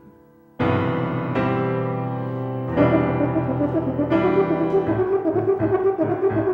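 Instrumental music. After a brief lull, sustained keyboard chords come in sharply about half a second in, then grow louder and busier from about three seconds in, with quick repeated notes near the end.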